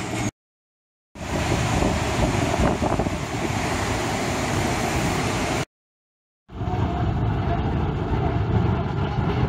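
Three short stretches of steady ambient noise split by two brief dead silences at cuts: a noisy station concourse around a ticket gate, then road traffic with car and bus engines running.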